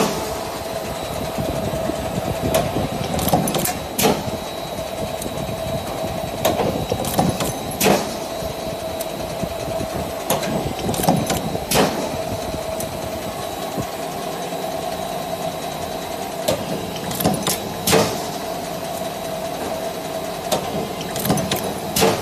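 Hinge-making stamping machinery: a steady motor hum, broken by sharp metal clanks at irregular intervals, about a dozen in all.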